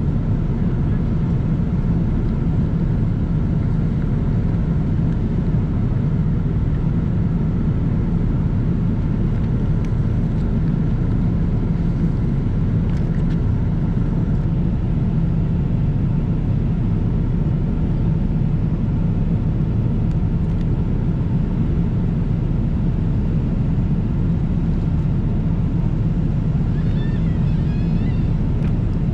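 Steady low rumble of a Boeing 777-300ER's cabin in flight: the noise of its GE90 engines and airflow, heard from inside the economy cabin.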